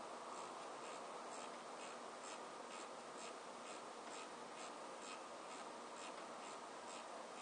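Detented rotary setting knob on a Kikusui PCR500M AC power supply being turned, giving faint, soft ticks about twice a second over a steady hiss.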